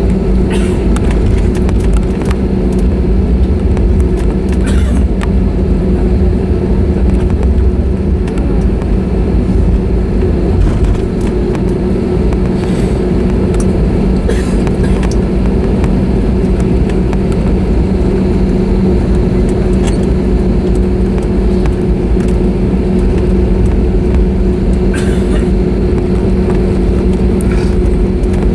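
Cabin noise of an Airbus A320neo taxiing after landing: a steady engine hum over a low rumble, with a few faint clicks and knocks. The rumble eases about 8 seconds in.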